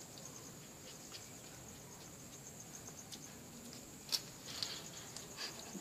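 Faint, steady, high-pitched chirring of insects such as crickets, with a few short clicks over it, the sharpest about four seconds in.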